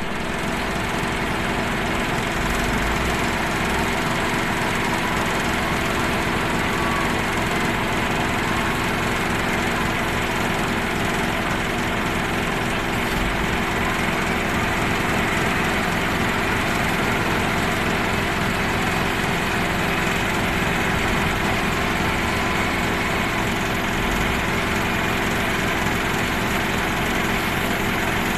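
Heavy diesel machinery engine running at a steady, unchanging speed, with a constant hum and no revving.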